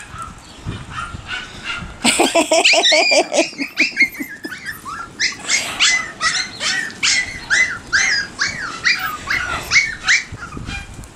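Maltipoo puppy yipping and whining: a short cluster of lower yaps about two seconds in, then a long run of short high-pitched yips, two or three a second. It is the crying of a worked-up puppy.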